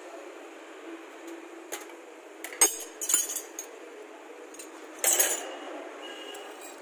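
Steel combination spanners and sockets clinking against each other and the concrete floor as they are picked up and laid on a floor jack. The sharp clinks come in a few bunches, the loudest about two and a half seconds in and another run about five seconds in.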